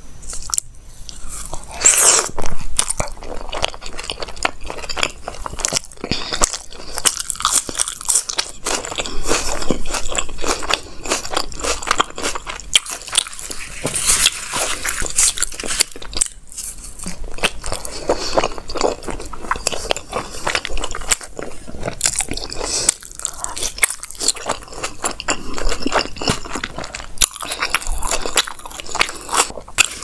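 Close-miked eating sounds: biting into and chewing rumali roti wrapped around tandoori momos, a steady run of wet chewing with many sharp clicky bites.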